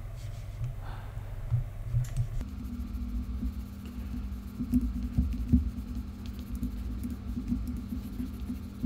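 Scattered computer mouse clicks, with a low steady hum coming in about two and a half seconds in.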